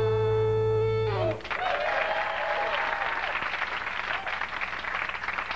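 A held musical chord slides down in pitch and cuts off about a second in, followed by audience applause.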